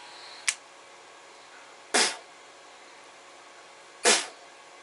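A sharp click about half a second in, then two short, loud, noisy bursts about two seconds apart, as the warm electric hair clipper is switched off and handled.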